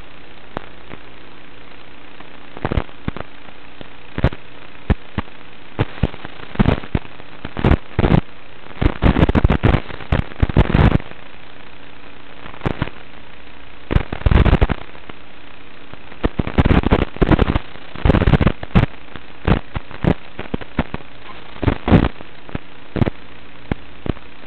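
Analog FPV video-link audio: a steady hum broken by clusters of short, sharp crackling static bursts, densest in the middle, typical of the signal breaking up as the quadcopter flies among trees.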